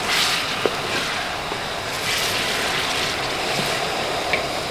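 Hot oil and ginger-garlic paste sizzling in a large aluminium pot as peeled tomatoes are stirred in with a wooden spoon; the hiss swells right at the start and again about two seconds in.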